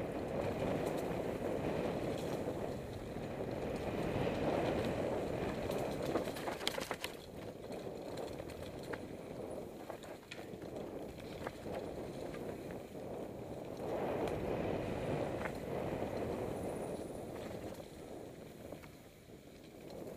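Mountain bike rolling down a rocky forest trail: a steady rumble and rattle of tyres over stones and roots, with a few sharp knocks from the bike about six to seven seconds in.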